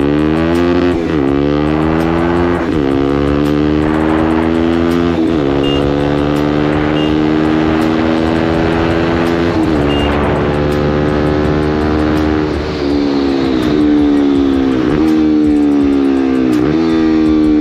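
Bajaj Pulsar NS200's single-cylinder engine under hard acceleration, shifting up through the gears: the note climbs in each gear and drops at each shift, several times over. It is the carburetted bike with a new carburettor diaphragm and new ignition coils, pulling with no pickup lag, as the owner judges it.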